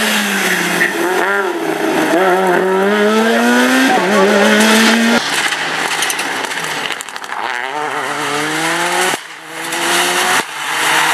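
Rally car engines accelerating hard, the pitch climbing and dropping back at each gear change several times. The sound cuts abruptly between different cars.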